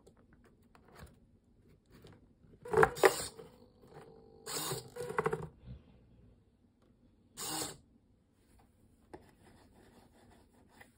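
Small hobby servo motors whirring in three short bursts, a buzzing whine with rapid gear ticking, as they roll up a paper curtain and swing cardboard window doors shut.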